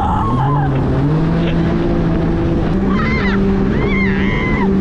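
Personal watercraft (jet ski) engine running hard at speed, its pitch stepping up a couple of times, over wind and spray noise. Riders scream and yell in short bursts near the start, about three seconds in, and again near the end.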